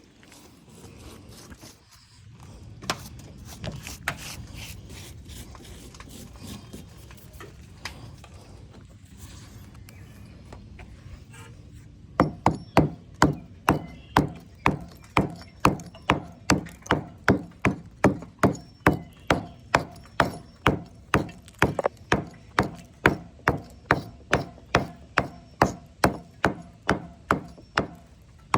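A hand hammer striking deteriorated brick and mortar to break it out: a few scattered knocks, then from about halfway steady, loud blows about two a second.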